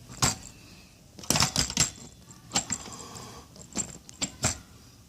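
Plastic front panel of an Antec Solo II computer case being pressed onto the steel case frame: sharp plastic clicks and knocks as its clips snap into place, a quick cluster about a second in and single clicks after.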